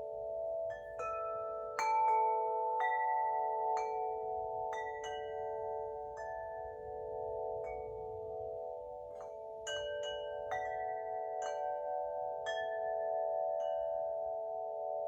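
Winter wind chime being rung: its metal rods are struck at irregular moments, about fifteen times, a louder strike about two seconds in, and their tones keep ringing and overlap into a steady shimmering cluster.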